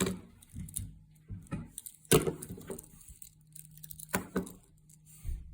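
Clicks and knocks of Swiss Army pocket knives being handled, with two louder clacks about two and four seconds in.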